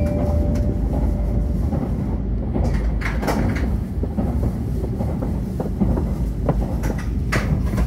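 Inside the cabin of a moving Shinkansen bullet train: a steady low rumble, with a few sharp clicks and knocks, a cluster about three seconds in and more near the end.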